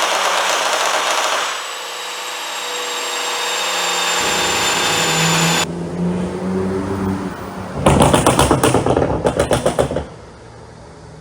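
Porsche Macan Turbo's 3.6-litre twin-turbo V6 exhaust revving, then a rapid string of loud pops and crackles for about two seconds on the overrun, the sound of an ECU pop-and-crackle tune, before settling to a steady idle.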